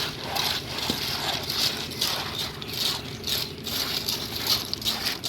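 Gritty rattling of wet concrete and stones being worked during a road pour, in bursts about twice a second, over a steady low machine hum.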